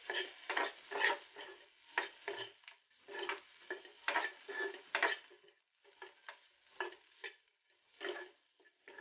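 Steel spatula scraping and tapping against a kadai as tomatoes and spice masala are stirred and sautéed, in irregular strokes about one or two a second, with a short pause about halfway through.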